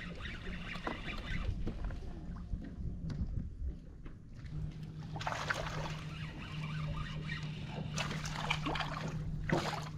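Hooked bass splashing at the water's surface a few times as it is reeled toward the kayak. A steady low hum comes in about halfway through.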